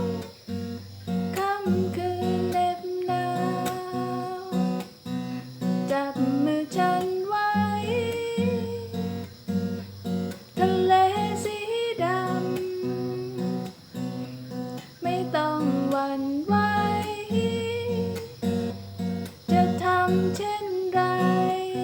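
Instrumental music: guitar playing a melody with sliding notes over plucked chords and a steady bass.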